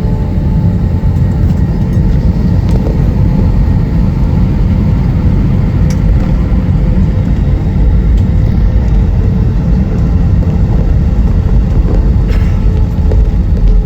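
Steady low rumble of an Airbus A320's cabin while the plane taxis on the ground, with a faint steady hum running over it.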